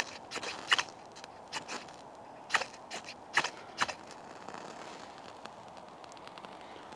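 Knife spine scraped hard down a ferrocerium fire steel, about nine short rasping strikes in the first four seconds, then stopping.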